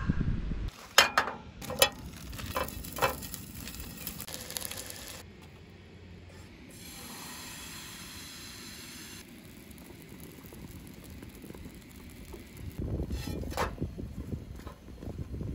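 A few sharp clicks in the first seconds, then pancake batter sizzling as it is poured into a hot nonstick frying pan. Near the end a metal spatula scrapes under the pancake.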